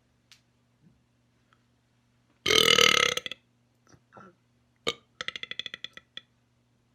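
A man's loud burp, about a second long, forced out as a final big one. A few small clicks and a quick run of short pulses follow near the end.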